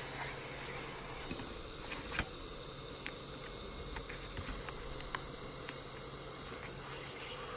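Hot-air gun blowing steadily, a constant fan hum and hiss, as it is swept over a laptop keyboard's metal backplate. Scattered small clicks, the sharpest about two seconds in.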